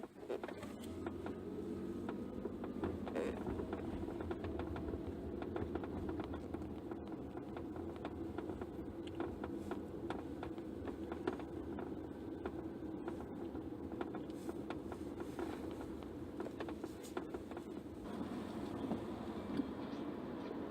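Driver-side tapping and rattling in a 2016 Toyota RAV4's cabin at low speed: quick, irregular clicks over steady road noise, caused by loose parts in the cowl panel. Near the end the tapping stops and a steady rain hiss takes over.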